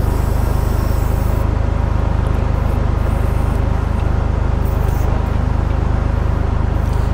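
Tractor engine running steadily under load, driving the hydraulic pump of a trailer-mounted FTG FB42 timber crane. Hydraulic oil hisses through the manual control valve as the levers are worked, for about the first second and a half and again briefly around five seconds in.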